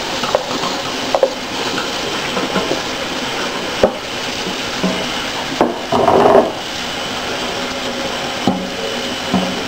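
Kitchen tap running steadily onto stinging nettle leaves in a metal colander in a stainless steel sink, as the leaves are rinsed. A few sharp knocks from handling the colander and plastic tub, and a louder burst about six seconds in.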